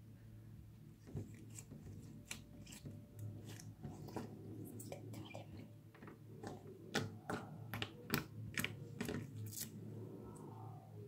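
Homemade banana slime being stretched, pressed and squeezed by hand, giving irregular small wet clicks and pops that come thickest and loudest about seven to nine seconds in.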